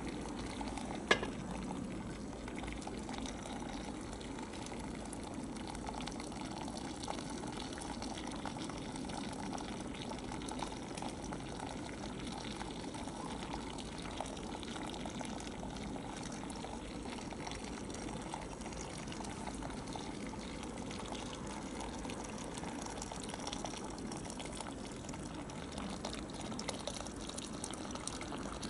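Boiling water poured steadily from a kettle into the water hopper of an early Yanmar K2 diesel engine, warming the cylinder so that the hard-starting engine will fire. A single sharp knock about a second in.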